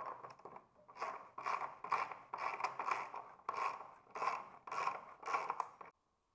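Hand ratchet wrench clicking in short repeated strokes, about two a second, as a bolt on a motor housing is run in. It cuts off suddenly near the end.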